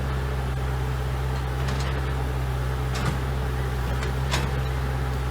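Excavator engine running steadily with a low hum, with a few short clicks or knocks, the clearest about three and four and a half seconds in.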